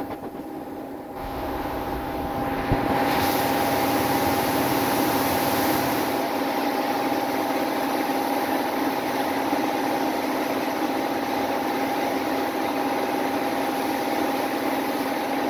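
Air-fed paint spray gun hissing steadily as it sprays basecoat, over a steady machine hum. The hiss is weaker for about the first second and comes back to full strength within a couple of seconds.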